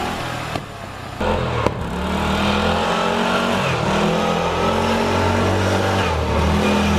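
Murray ride-on lawnmower's engine running low, then revving up about a second in and holding at speed, its pitch rising and falling with the throttle; its carburettor has just been adjusted so it runs without cutting out. A couple of sharp clicks in the first two seconds.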